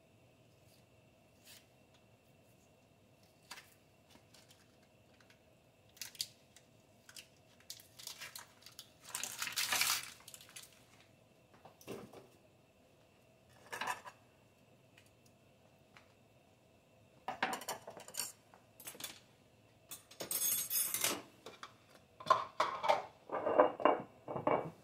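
Food prep on a wooden cutting board: scattered clicks and knocks of a knife and vegetables being handled, with a few longer scraping, rustling bursts, the loudest near the end.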